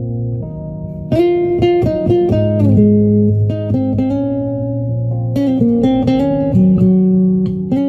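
Background music on guitar: plucked chords and notes ringing on, with a new chord every second or so.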